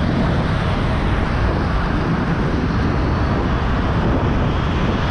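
Steady rushing wind on the microphone mixed with road traffic noise, heard while riding a bicycle along a road.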